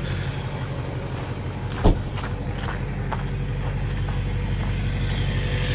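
Cold 6.6-litre Duramax V8 turbodiesel idling through a 4-inch exhaust with a muffler, a steady low pulse that grows a little louder toward the end. A single sharp thud about two seconds in.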